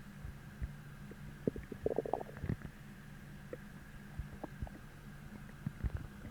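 Human stomach growling from hunger: irregular short gurgles and pops, with a longer bubbling gurgle about two seconds in and another run of pops near the end.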